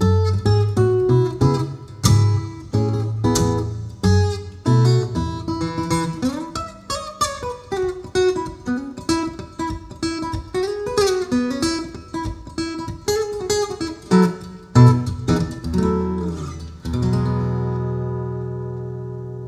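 Steel-string Maton EMBW6 Mini Maton blackwood acoustic guitar, heard through its AP5 Pro pickup system, playing a plucked melody over bass notes. About 17 seconds in it ends on a chord left ringing and slowly fading.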